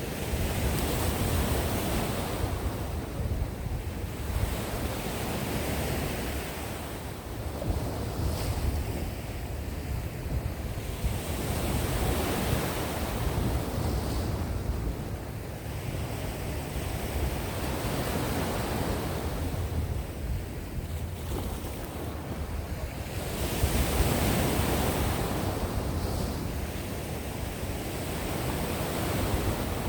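Sea waves breaking and washing onto the shore, swelling and falling every five seconds or so, with a steady low rumble of wind on the microphone.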